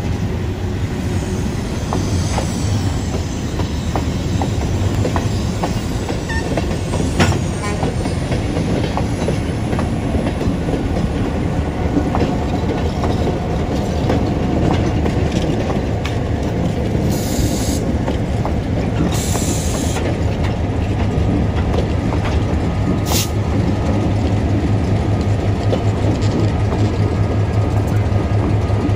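EMD GP9 locomotive's two-stroke diesel engine running as the train rolls slowly past, with wheels clicking over the rail joints. Its low throb grows stronger near the end as the locomotives come by. A few short hisses of air come in the middle.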